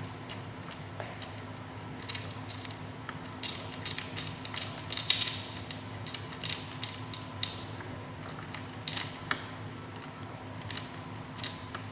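Irregular small clicks and clinks of metal parts as an Ohlins steering damper is worked into its mount by hand, over a steady low hum.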